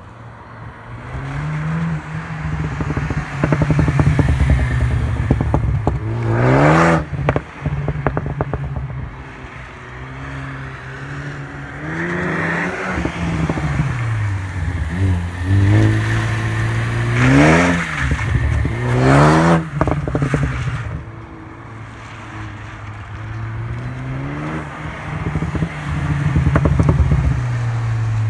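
2015 Ford Focus ST's turbocharged 2.0-litre four-cylinder, with a catted downpipe and muffler delete, revved up several times from idle and let fall back. Each time the revs drop it pops and crackles on the overrun, the crackles the Stratified tune is set up for.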